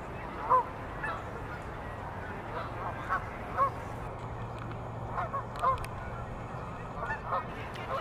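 Geese honking: about a dozen short, separate honks, each rising and falling in pitch, the loudest about half a second in.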